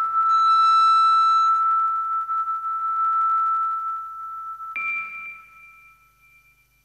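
Music of long, ringing bell-like tones. A single sustained tone fades slowly over several seconds, and a second, higher tone is struck about five seconds in and rings out.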